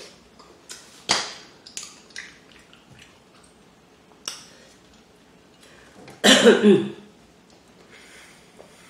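Close-up sounds of eating king crab legs: a handful of sharp clicks and cracks of shell, and a louder, longer noisy burst about six seconds in.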